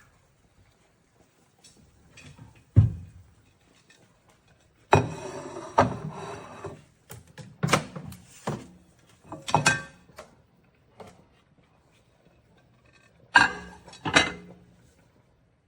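Thunks, clicks and a short rattle from a microwave oven being handled. There is a sharp thud about three seconds in, a rattle lasting about two seconds, a run of clicks and knocks, and two knocks near the end.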